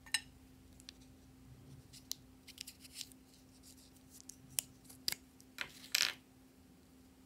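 Small plastic lip balm tubes shaped like fruit-juice bottles being handled and uncapped: a scatter of light plastic clicks and taps, with sharper clicks about four and a half to five seconds in and the loudest, a short scraping click, near six seconds.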